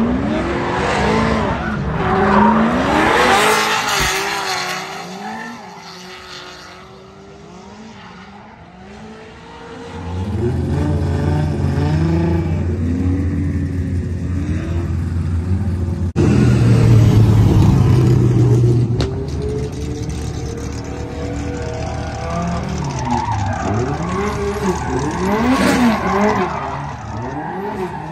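Turbocharged K24-swapped Honda S2000 drifting: the inline-four's revs rise and fall repeatedly while the tyres squeal. It eases off for a few seconds near the middle, then comes back much louder all at once.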